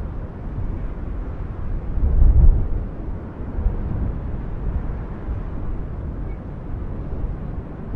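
Deep, continuous rumble of the erupting Cumbre Vieja volcano on La Palma. It swells to a louder surge about two seconds in, then settles back.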